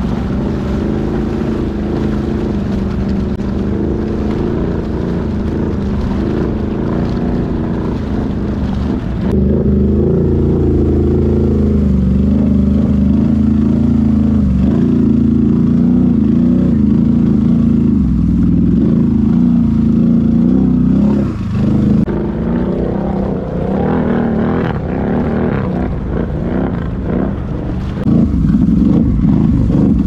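ATV engine running steadily under load while the quad wades through deep creek water, with water churning around the machine. The engine gets louder about a third of the way in, dips briefly about two-thirds through, and picks up again near the end.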